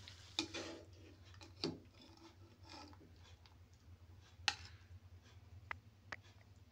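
Faint scraping and a few sharp taps of a wooden spatula against a frying pan and a ceramic plate as fried dal is served, over a low steady hum. The loudest tap comes about four and a half seconds in.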